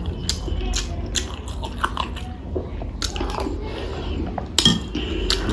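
Close-miked eating of boiled eggs: chewing and biting with many small wet mouth clicks, and a sharper click near the end.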